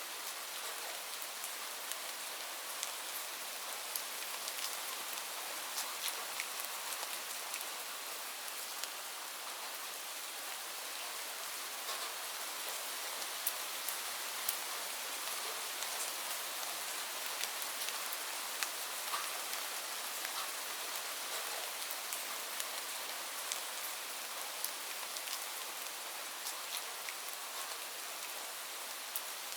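Steady rain falling, a constant hiss with many scattered sharp drips and drop ticks.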